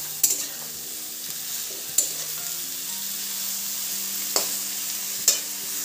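Strips of ridge gourd, potato and brinjal sizzling in hot oil in a metal kadai as a metal spatula stirs them, with four sharp clinks of the spatula against the pan.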